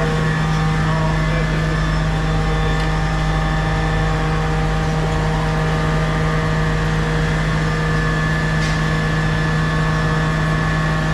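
Steady electric hum of laundry pressing machinery, with a strong low drone and several steady higher tones and no change in level.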